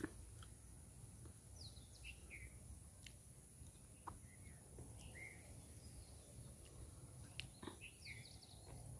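Near-quiet outdoor background with a few short, faint bird chirps scattered through, over a thin steady high whine. A single sharp click at the very start.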